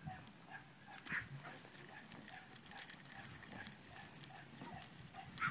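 Pug and Boston terrier puppies play-fighting over a plush toy: faint play-growling and scuffling, with two short high yips, about a second in and near the end.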